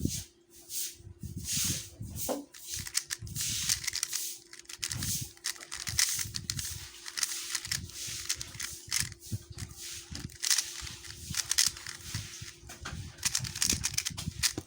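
QiYi MS 3x3 speedcube being turned rapidly by hand: a fast, irregular stream of plastic clicks and the rubbing of its layers sliding against each other.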